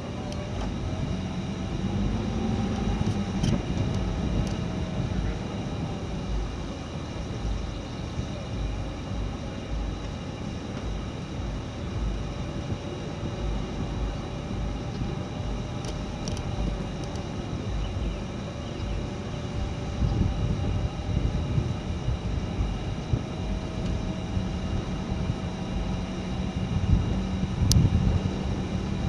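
A motor running steadily, its pitch drifting slightly, over an uneven low rumble.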